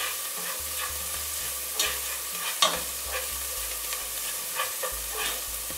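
Diced onions sizzling in hot oil in a pot over medium-low heat while a spatula stirs them, with a few sharp scrapes and taps of the spatula against the pot, the sharpest about two to three seconds in.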